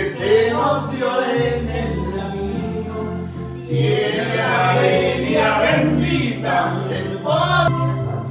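A Spanish-language song with singing, the voices moving over a steady bass line.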